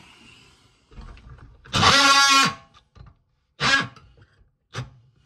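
DeWalt cordless oscillating multi-tool buzzing in short bursts: one of just under a second about two seconds in, which drops in pitch as it stops, a shorter one soon after, and a brief blip near the end.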